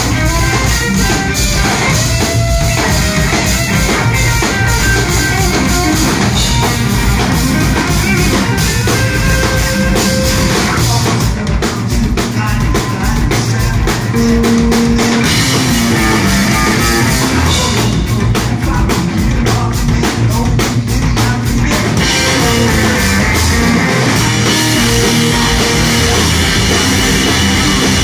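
Loud live rock music: a drum kit played hard under electric guitar, continuous and driving.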